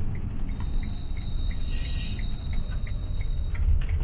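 Camper van driving, with a steady low engine and road rumble heard inside the cab. A light, even ticking about three times a second runs alongside it, typical of the turn indicator while turning right.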